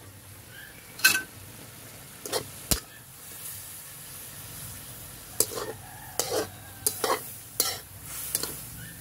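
Chicken, pork and long-bean adobo sizzling in an aluminium wok while a metal spatula stirs it. The spatula scrapes and knocks against the pan about eight times, irregularly, over a faint steady sizzle.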